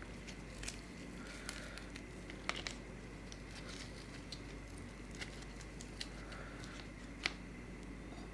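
Thin rumali roti being torn and folded by hand: soft crinkling of the bread, with a few faint sharp clicks.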